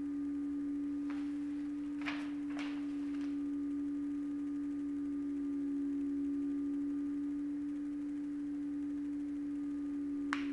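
A steady hum at one low pitch, with a few faint clicks: three in the first three seconds and one near the end.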